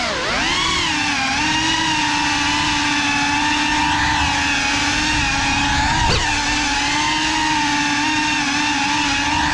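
FPV drone's electric motors and propellers whining steadily, heard from on board the drone. The pitch swoops up and down briefly near the start and again about six seconds in as the throttle changes.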